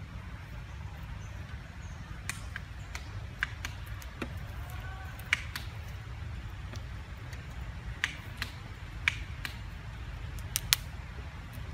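Outdoor ambience: a steady low rumble with scattered sharp clicks and snaps, and a faint short chirp-like call about five seconds in.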